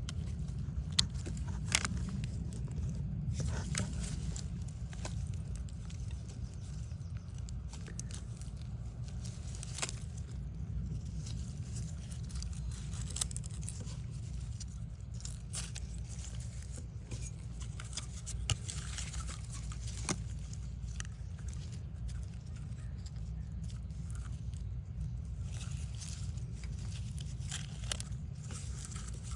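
Scattered small clicks and scrapes of hand work on a coaxial cable's wire and shield, over a steady low rumble.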